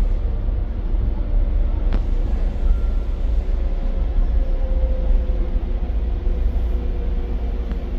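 A steady low rumble with a faint, slowly wavering hum above it, and a single faint click about two seconds in.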